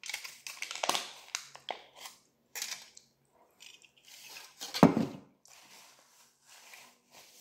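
Crinkling and rustling of the torn foil lid from an instant-noodle cup, in a run of short bursts. Then a paper napkin rustles against the face, with one louder burst about five seconds in.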